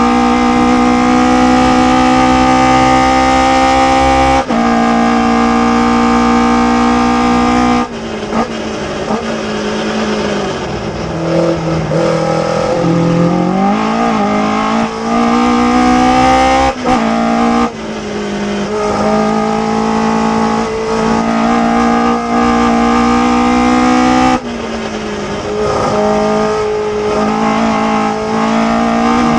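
Ginetta G16 sports racer's engine heard from the open cockpit at racing speed. Its note climbs under full throttle and drops sharply at an upshift about four seconds in. Through the middle it falls and wavers as the car slows and turns through a corner, then it climbs hard again on the exit with another upshift near the end.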